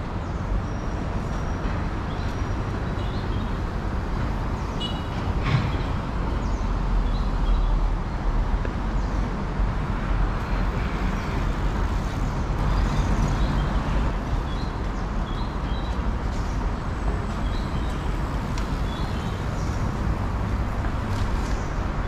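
City street traffic: a steady rumble of passing vehicles, swelling a little as heavier traffic goes by. Short, faint high-pitched chirps sound now and then, and there is a single sharp click about five and a half seconds in.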